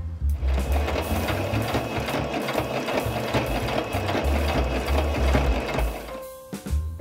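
Electric household sewing machine stitching steadily through layers of canvas, topstitching a tote bag's top edge. It starts about half a second in and stops about a second before the end, over background music with a steady low beat.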